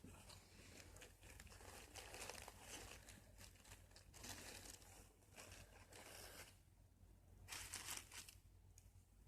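Faint crinkling and rustling of packaging being handled, in several short bursts, the loudest near the end.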